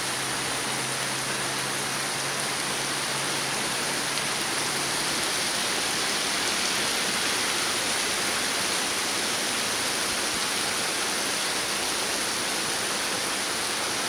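Heavy rain pouring steadily onto pavement and parked cars: a dense, even hiss that holds at one level throughout.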